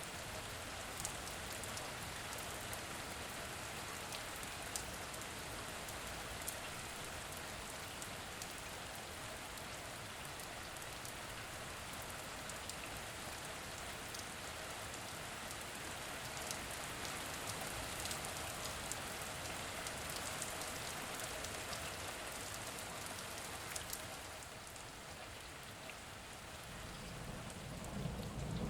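Steady rain falling on a surface: an even hiss dotted with sharp drop ticks. It eases slightly a few seconds before the end, and a low rumble of thunder begins to build at the very end.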